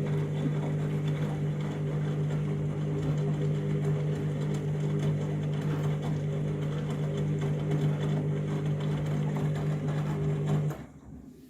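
Front-loading washing machine's drum motor running steadily with a low hum, turning a heavy load of wet laundry during a rinse. The motor stops near the end.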